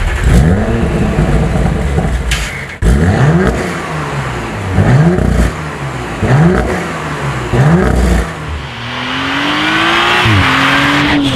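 Audi RS5 Sportback's twin-turbo V6 being revved: about four quick rev blips, each rising and falling. Then a slower, steadier climb that drops sharply near the end.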